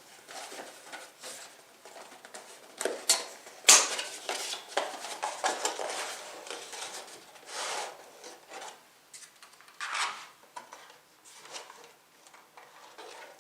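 Computer parts and packaging being handled: irregular clicks, taps and rustles of small hard plastic and metal pieces, with one sharper clack about four seconds in.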